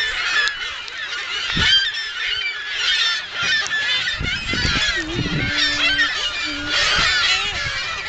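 A large nesting colony of gulls calling all at once: a dense, unbroken chorus of many overlapping squawks and cries, very loud.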